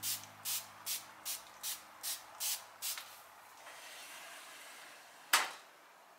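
A trigger spray bottle misting a thick slice of bread before toasting, eight quick squirts at about two and a half a second. About five seconds in, the stainless grill drawer of a built-in stove grill shuts with one sharp clack.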